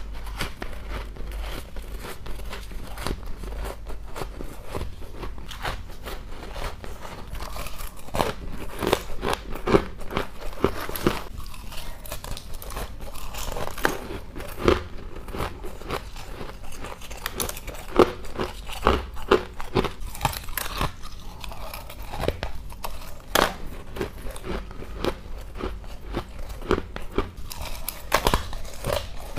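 Close-up biting and chewing of brittle pink frozen frost ice: dense crisp crunches and crackles throughout, with a few sharper, louder bites standing out.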